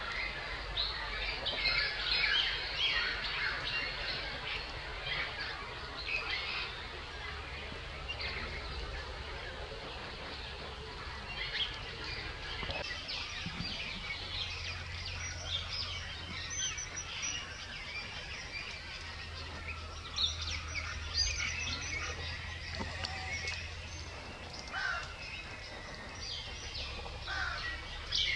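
Small birds chirping and calling on and off, short high notes in quick runs, over a low steady rumble.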